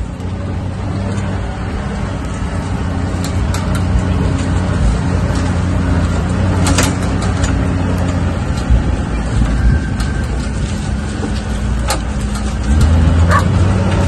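Engine of a small open off-road vehicle running steadily as it drives over a rough dirt track, heard from inside, with scattered knocks and rattles over the bumps. It gets louder near the end.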